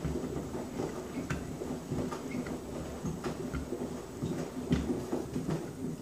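Front-loading washing machine drum turning through a wash, soapy water sloshing, with irregular knocks as Birkenstock sandals tumble and drop against the drum.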